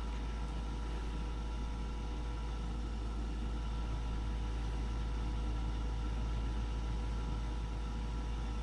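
Goodman gas furnace running with a steady low hum and several faint steady whining tones during its start-up, before the burners light.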